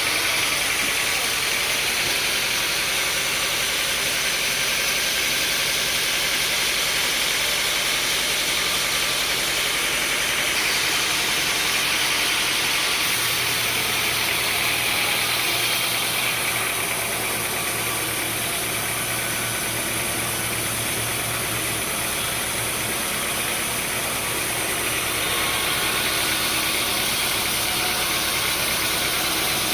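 Sawmill machinery running steadily, a motor-driven hum under a strong, even hiss. The low hum shifts a little about a third of the way in.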